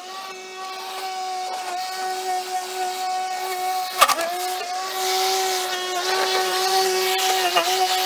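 EGO battery-powered electric lawn mower running with a steady whine from its motor and blade. A sharp knock about halfway through makes the pitch dip for a moment, and a hiss of cutting grass builds after it.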